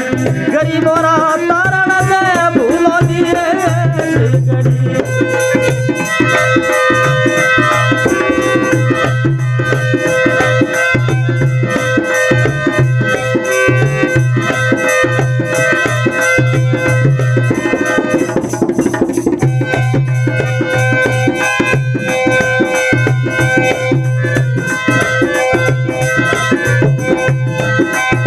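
Instrumental passage of a Rajasthani folk devotional song: a dholak plays a steady rhythm with the jingles of a khanjari frame drum, under long held melody notes. A sung phrase trails off about four seconds in.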